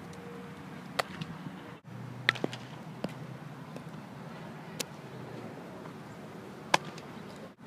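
About six sharp, short knocks or clicks at uneven intervals over a steady low hum; the loudest comes near the end.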